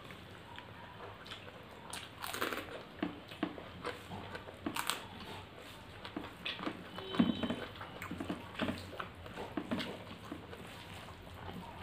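Close-up eating sounds of two people eating rice and curry by hand: irregular chewing, lip smacks and short clicks, with fingers working rice into mutton curry. The loudest smack comes a little after seven seconds.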